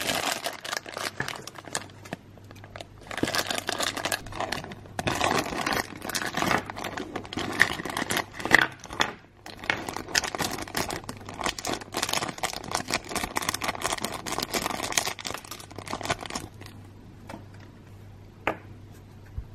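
Thin clear plastic bags being crinkled and pulled open by hand to unwrap miniature toy pieces: a dense crackling rustle that stops a few seconds before the end. After it come two light clicks.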